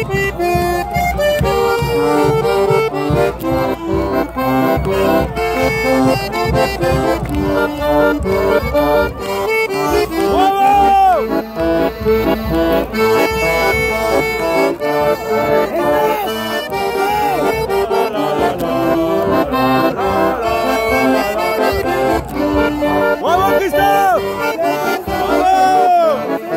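Accordion playing a tune in quick, short notes, with a few shouts rising over it now and then.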